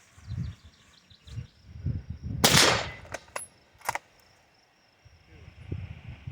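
A single rifle shot from a Krag–Jørgensen bolt-action rifle about two and a half seconds in, trailing off briefly, followed by two sharp clicks within the next second and a half.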